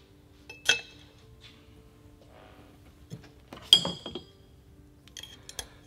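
Metal clinks as a Weaver scope rail is handled and set onto an FX Impact air rifle's receiver: a sharp ringing clink about a second in, a louder ringing clink near four seconds, then a few light taps.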